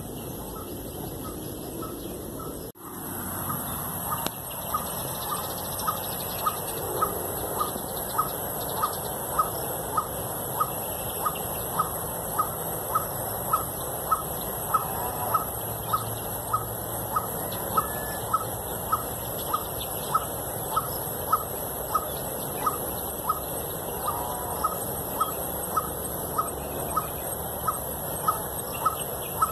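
A bird's short call note repeated at a very even pace, about one and a half times a second, over a steady high hiss. The sound briefly drops out about three seconds in.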